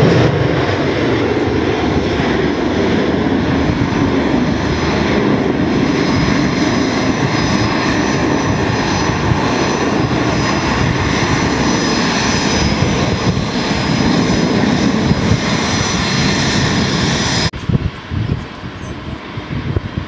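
Jet airliner engines running loud and steady, with a faint high whine over a broad roar. The sound cuts off suddenly near the end to a quieter, uneven rumble.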